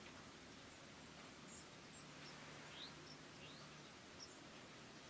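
Near silence with faint, short, high bird chirps scattered throughout, a few of them quick upward sweeps.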